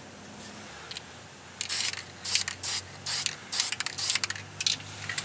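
Aerosol spray-paint can giving about eight short hissing squirts, starting a couple of seconds in. The paint marks the driveshaft and pinion flange so they can be lined up again on reassembly.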